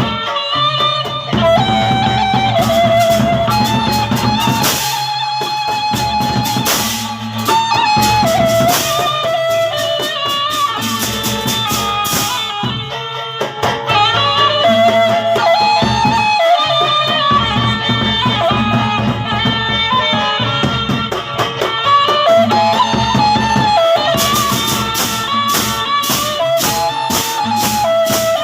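Gendang beleq ensemble playing: drums and clashing cymbals keep a steady rhythm under a melody line of held and sliding notes. The cymbal strikes grow denser near the end.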